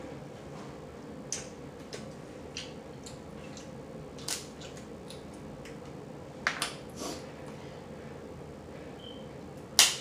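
Snow crab leg shells cracking and snapping as they are broken open by hand: scattered sharp cracks a second or two apart, a close pair about two-thirds of the way in and the loudest just before the end.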